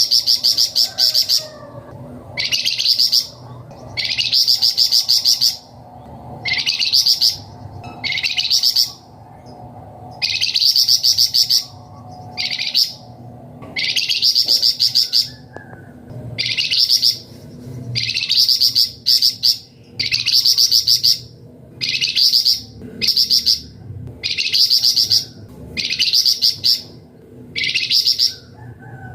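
A small songbird (a 'flamboyan', as Indonesian bird-keepers call it) singing steadily: a string of high, rapid trilled phrases, each about a second long, repeated with short pauses between them.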